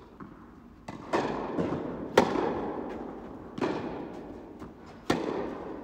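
Tennis ball being struck by rackets and bouncing on the court during a rally, a series of sharp pops about a second or so apart, each echoing in a large indoor tennis hall. The loudest hit comes about two seconds in.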